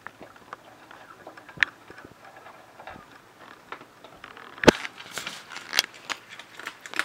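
Puppies scrabbling about: scattered light clicks and taps of small paws and claws on bedding and a plate. There is a sharper knock about four and a half seconds in, and the taps come more often after it.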